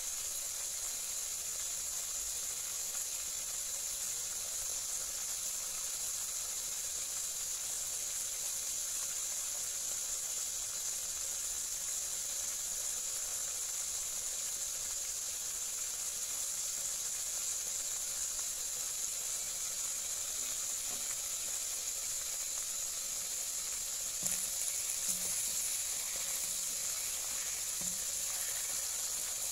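Marinated boneless milkfish (bangus) sizzling steadily in hot oil in a wok, with a few light knocks near the end.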